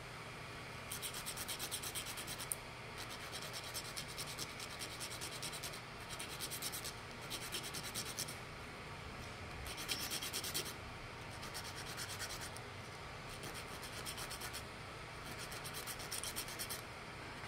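End of a small wooden dowel being sanded by hand on sandpaper, in quick scratchy strokes. The strokes come in spells of one to three seconds with short pauses between. The end is being sanded down to fit a drilled hole.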